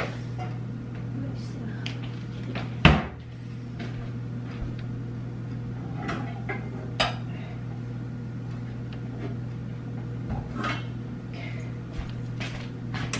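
Kitchen cupboard door and pots and pans knocking as a pan is fetched, with one sharp bang about three seconds in and a few lighter clanks later, over a steady low hum.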